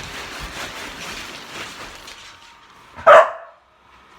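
A dog barks once, short and loud, about three seconds in, over a soft noisy background.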